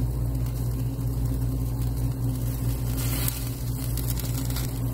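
A steady low mechanical hum, like a motor running, that holds even and unchanged throughout.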